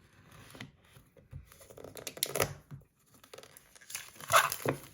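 Packaging being opened by hand: irregular crinkling, tearing and rustling with a few small clicks, loudest about four seconds in.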